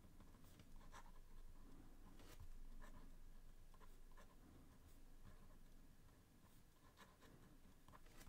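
Lamy ratio 46 fountain pen with a 1960s MK steel nib writing upside down (reverse-nib writing) on 160 g Clairefontaine DCP paper: faint, irregular scratching of the pen strokes. With the nib reversed there is little feedback, and the line is extra fine.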